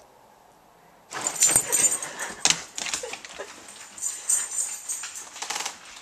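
A dog scrambling off a bed and trotting across a wooden floor: a quick jumble of knocks, rustles and claw clicks that starts about a second in.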